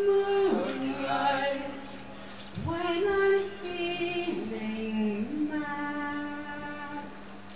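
A woman's solo voice howling like a wolf into a microphone: about six long wordless sung notes, some sliding up at their start before being held. A steady low hum runs underneath.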